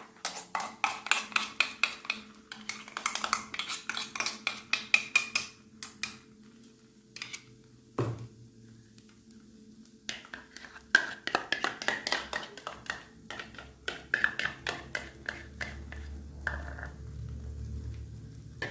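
A metal spoon scraping and tapping against a steel mixer-grinder jar to get ground masala paste out into the pan. There are rapid runs of clinks for the first six seconds, a single knock about eight seconds in, and more scraping clinks with a ringing tone later.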